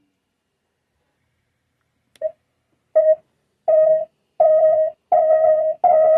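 An electronic tone sound effect at one steady pitch, beeping on and off. The beeps start about two seconds in as a short blip, grow longer with short gaps between them, and run into a continuous held tone near the end.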